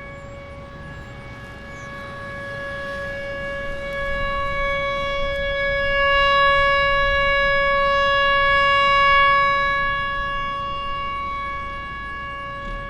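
Whelen Vortex rotating electromechanical outdoor warning siren sounding a steady alert tone of about 560 Hz. The tone holds its pitch while it swells louder over the first several seconds and then fades again as the rotating siren head sweeps toward and away.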